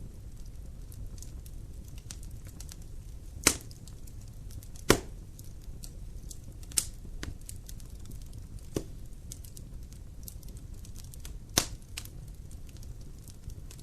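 Fire burning in a fireplace: a steady low rumble of flames with constant faint crackling and about five loud, sharp pops of burning wood scattered through.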